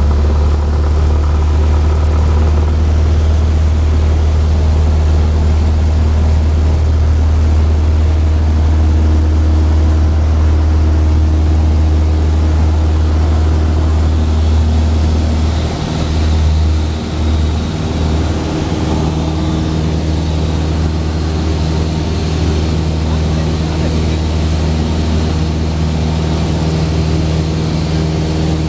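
Cessna light aircraft's piston engine and propeller at full power, a steady low drone heard inside the cabin through the takeoff roll and climb-out. A little past halfway the drone wavers briefly, then carries on with a slightly higher hum.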